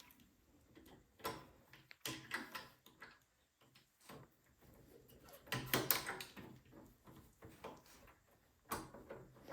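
Hand tools and small metal parts clicking and knocking on a small snowblower engine during carburetor removal, in a few short, scattered clusters.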